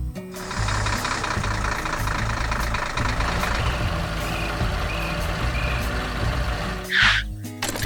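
A heavy construction machine's engine running, as an animation sound effect. A few short beeps sound in the middle, and a loud short hiss comes about seven seconds in.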